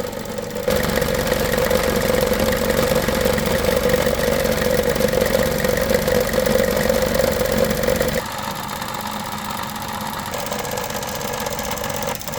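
2013 Buick Encore's 1.4-litre Ecotec four-cylinder running in the engine bay. A louder steady drone with a hum comes in suddenly under a second in and cuts back abruptly just after eight seconds in, leaving the quieter running.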